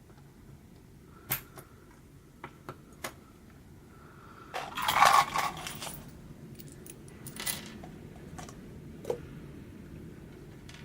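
Small plastic LEGO Technic pieces clicking and clattering as they are handled: a few sharp clicks at first, a louder rattle of pieces about five seconds in, then a few more clicks.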